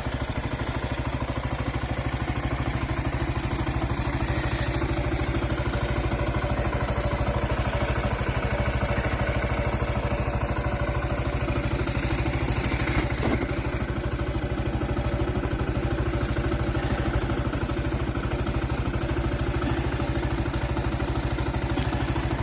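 Zontes U1 motorcycle's single-cylinder engine idling steadily through its exhaust, with a brief click about halfway through.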